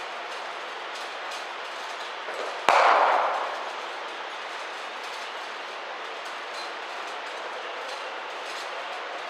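Steady background noise of a large indoor hall, with one sharp crack of a cricket ball striking about two and a half seconds in, echoing briefly around the hall.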